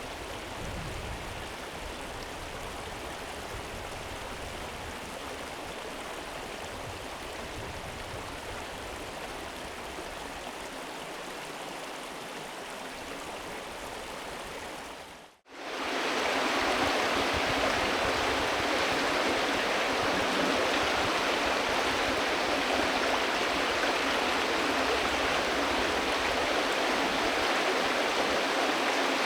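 River water flowing, a steady rushing and gurgling. About halfway it cuts out for a moment and comes back louder and brighter.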